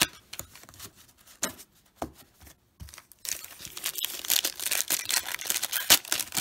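A few scattered clicks of trading cards being handled, then from about three seconds in the dense crackling and crinkling of a 1989 NBA Hoops wax pack's paper wrapper being torn open.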